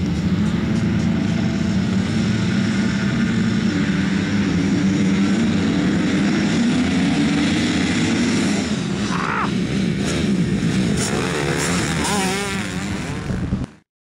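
A pack of motocross bikes revving together at the start line, then accelerating away as a group, their combined engine note climbing in pitch about four seconds in. The sound cuts off abruptly near the end.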